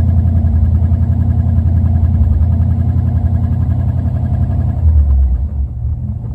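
Car engine idling roughly, with an uneven, pulsing beat. About five seconds in, the sound drops to a lower rumble.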